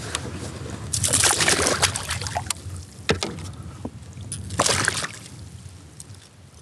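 A smallmouth bass thrashing in a landing net at the water's surface beside a kayak, in two bouts of splashing: one about a second in and another a few seconds later.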